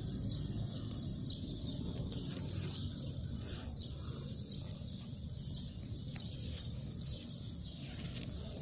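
Short high chirps repeating irregularly, about one or two a second, over a steady low rumble.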